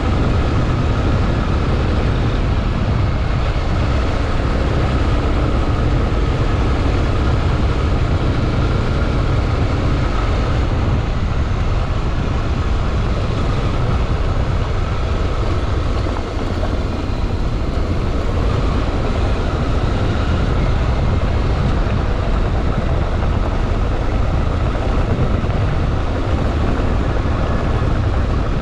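Honda XRE 300 Rally's single-cylinder four-stroke engine running steadily: a heavy low rumble under a constant rushing noise, with a brief dip about sixteen seconds in.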